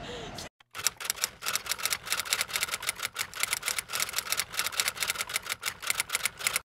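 Typewriter keys clacking in a rapid, uneven run of keystrokes, a sound effect laid under on-screen text typing out letter by letter; it stops abruptly at the end.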